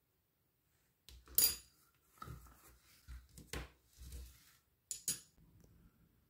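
Small glass pieces clinking and knocking on a hard surface as a glass dip pen and its glass pen rest are handled: a bright ringing clink about a second and a half in, several duller knocks, and two quick ringing clinks about five seconds in.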